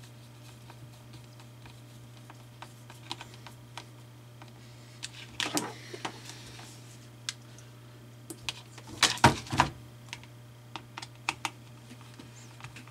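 Scattered plastic clicks and knocks from handling and fitting together the plastic housing of an electric desoldering gun, with a cluster of louder knocks about nine seconds in.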